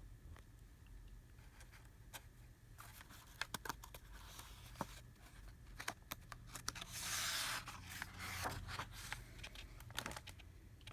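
Faint handling of a picture book: scattered small clicks, then a brief paper rustle about seven seconds in, like a page being turned, with a smaller rustle soon after.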